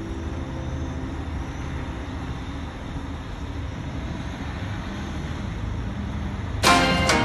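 Steady low rumble of heavy diesel vehicles, a wheeled excavator and a dump truck, driving along a road across the water. Plucked-string music cuts in near the end and is louder than the rumble.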